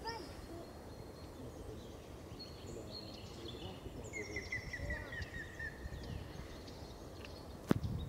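Grey-headed woodpecker singing a run of about ten evenly spaced fluty notes that fall slightly in pitch, with other songbirds calling higher and wind in the background. A single sharp knock near the end is the loudest sound.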